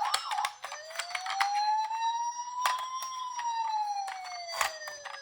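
Toy emergency-vehicle minicar's electronic siren: a fast warble that stops about half a second in, then one slow wail rising for about two and a half seconds and falling back, over scattered sharp clicks.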